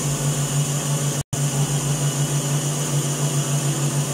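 KitchenAid stand mixer's motor running at raised speed, its wire whip beating cream in the steel bowl, a steady hum that pulses evenly several times a second. The cream is being whipped up toward stiff peaks. The sound cuts out for an instant about a second in.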